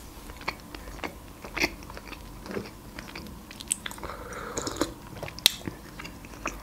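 Close-up mouth sounds of chewing a soft iced cinnamon roll: irregular wet clicks and smacks. About four seconds in comes a short sip from a mug.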